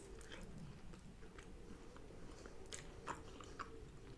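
Faint close-up chewing of a mouthful of food, with scattered soft crunchy clicks.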